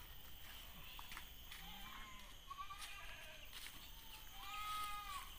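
A goat bleating a few times, the longest call near the end.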